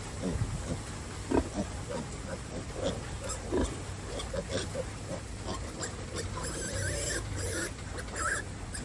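Pigs grunting in many short, repeated grunts, with a few higher squeals near the end.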